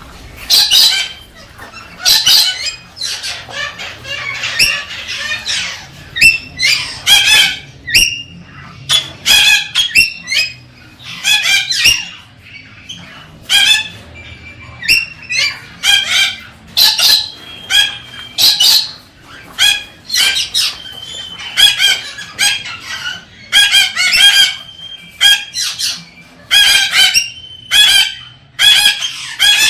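Galah (rose-breasted cockatoo) calling over and over, loud harsh squawks about one to two a second: courtship calling to stimulate a female.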